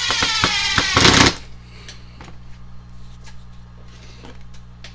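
A Ridgid cordless driver's motor runs with a whine that sags slightly in pitch as it drives a screw into the reassembled drill's housing. It ends in a short, harsh, louder burst about a second in, then stops. Light clicks and knocks of tools being handled follow.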